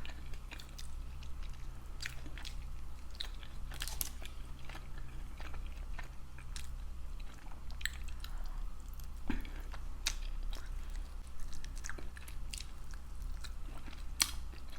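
Close-miked chewing and biting of chicken wings, with scattered crisp clicks and crunches. A steady low hum sits underneath.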